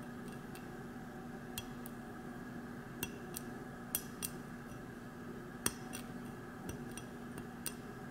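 A pointed metal pick ticking and scraping against a stainless steel TIG weld bead, about ten light, irregular clicks, as it chips a small black speck off the weld's tie-in.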